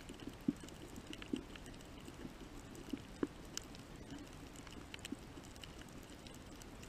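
Underwater reef ambience: a steady faint hiss with scattered clicks, crackles and soft low knocks, and a couple of sharper clicks about halfway through.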